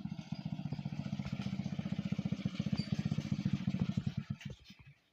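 A small engine running with a fast, even beat, growing a little louder and then fading out about four and a half seconds in.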